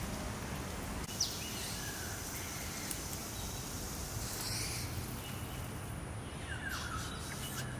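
Steady hiss of water spraying from a garden hose nozzle, thinning out about six seconds in, with a few faint bird chirps.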